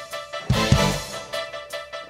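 Background music: held instrumental notes with a few strong drum hits, no singing.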